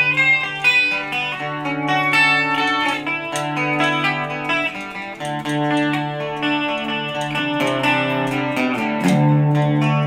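Gibson Les Paul electric guitar played through a Digitech RP55 effects processor: picked chords and single notes that ring on and overlap.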